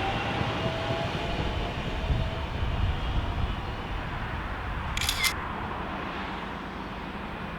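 A passing train's rumble slowly fading away, with the tail end of its horn at the very start. A short, sharp clatter about five seconds in.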